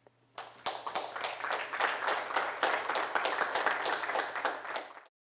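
Audience applauding with many hands clapping. It starts about half a second in and cuts off suddenly near the end.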